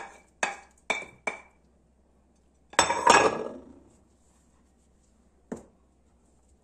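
Four quick knocks as a wooden spoon taps and scrapes chopped tomatoes off a ceramic plate into a plastic mixing bowl, then a louder clatter about three seconds in as the plate is set down on the counter, and one more single knock near the end.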